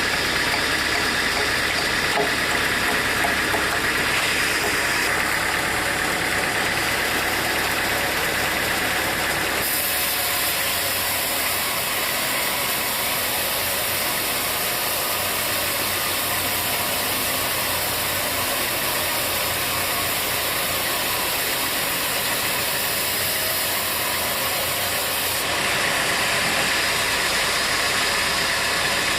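Sawmill machinery running steadily. A brighter, higher hiss joins in about ten seconds in and drops away a few seconds before the end.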